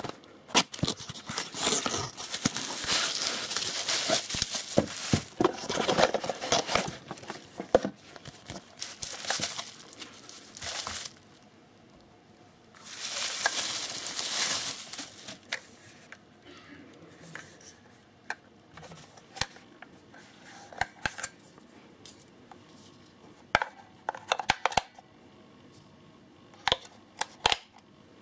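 Unboxing: a cardboard box and a bubble-wrap bag being handled and pulled open, rustling and crinkling in long bursts through the first ten seconds and again briefly about halfway. Later come scattered clicks and taps as the plastic weather station is handled.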